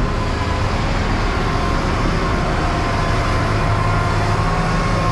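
Tractor diesel engine running steadily and hard under load, a continuous low drone with a thin steady high whine above it.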